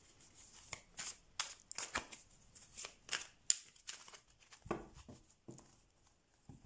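A deck of tarot cards being shuffled by hand in an overhand shuffle: a run of quick papery swishes, several a second. In the last couple of seconds there are a few duller knocks as the deck is gathered and squared.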